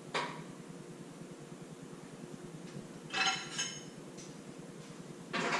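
A couple of short ringing clinks, like glass or crockery being handled, about three seconds in, with a brief knock at the start and a louder knock near the end.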